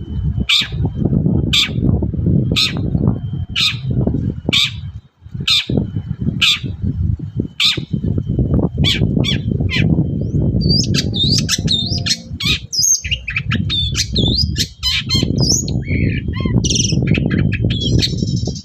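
Long-tailed shrike (cendet) calling: harsh, clipped notes repeated about twice a second for the first ten seconds, then a fast, varied song of gliding whistles and twitters. A steady low rumble runs underneath.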